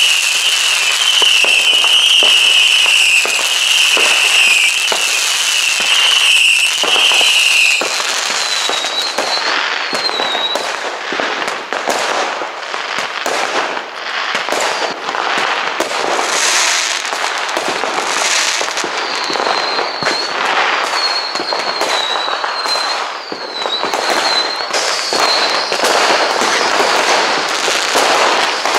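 New Year's Eve fireworks going off all around: many firecrackers and shells banging and crackling in quick succession. A steady high whistle runs for the first eight seconds or so, and shorter wavering whistles come later.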